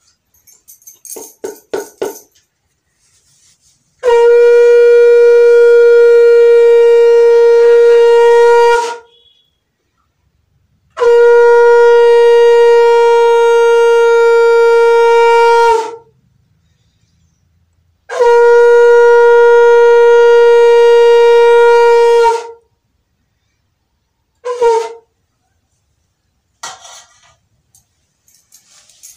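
Conch shell (shankha) blown in three long, steady blasts of about five seconds each, then one short blast, sounded as the puja's recitation ends.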